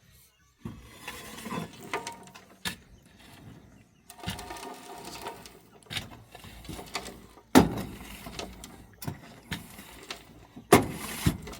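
A series of irregular sharp knocks and thuds, the loudest about seven and a half seconds in, with quieter faint sounds between them.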